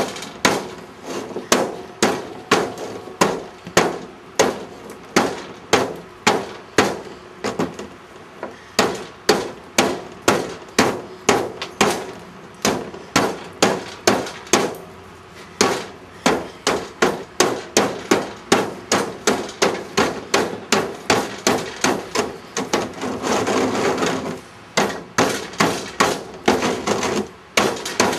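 Steady hammering: sharp, ringing strikes at about two a second, with a brief stretch of rougher continuous noise about four-fifths of the way through.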